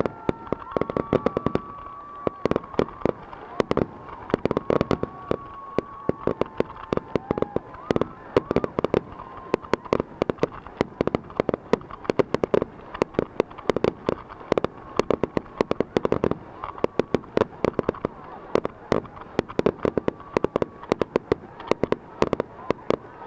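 Fireworks finale: a barrage of aerial shell bursts, many sharp bangs a second with no let-up. A few long held tones sound over the bangs in the first seconds and again around five seconds in.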